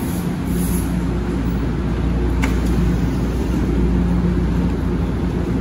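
São Paulo Metro Frota I subway train standing at the platform, its onboard equipment running with a steady low hum. About two and a half seconds in there is a brief sharp sound as the train's doors open.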